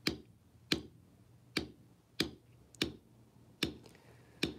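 A mallet striking a bar grounder backgrounding stamp into tooling leather, seven sharp taps at a steady working pace of a little more than one a second.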